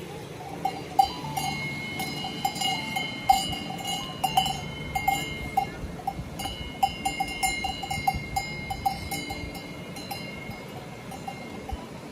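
Livestock bells clanking and ringing irregularly, several strikes close together at times, thinning out near the end.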